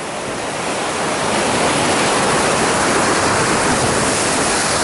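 Sea surf breaking and churning around coastal rocks: a steady rushing wash of white water that swells over the first second or so and then holds.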